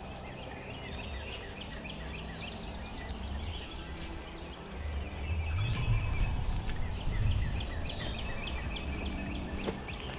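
Wild birds chirping and calling across an open field, with low wind rumble on the microphone that swells for a few seconds midway.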